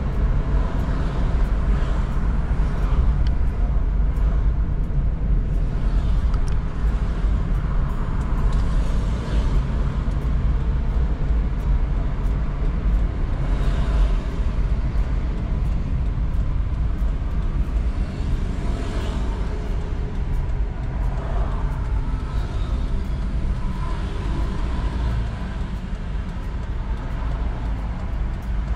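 Car cabin noise while driving: a steady low engine and road rumble, with a hiss that swells briefly a few times and scattered faint ticks.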